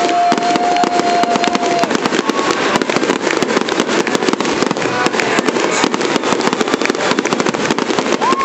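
Fireworks display going off in a dense, unbroken barrage of bangs and crackles. A few whistling tones ride over it, one held steady for about two seconds at the start.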